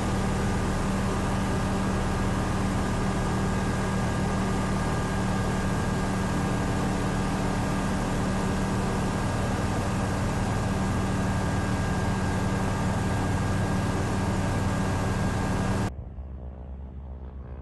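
Single-engine high-wing light aircraft heard from inside the cabin in level flight: a steady drone of engine and propeller with a low hum and rushing air noise. Near the end it cuts off suddenly to a much quieter sound.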